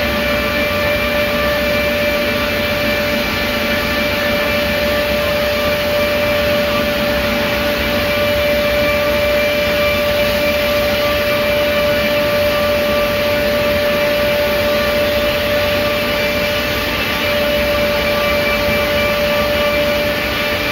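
The 11 kW cutting unit of a PRINZ CUTSTAR bundle-trimming saw station running and moving down across a stacked lumber bundle. It makes a loud, steady machine noise with a constant whine.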